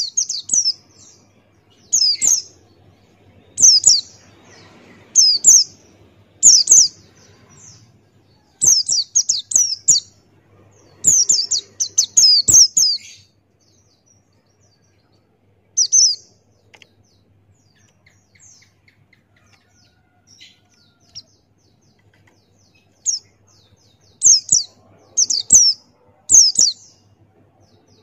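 Buxtoni white-eye (pleci) singing: short, rapid, high chirping phrases in bursts every second or two. The song pauses for several seconds in the middle and then resumes near the end.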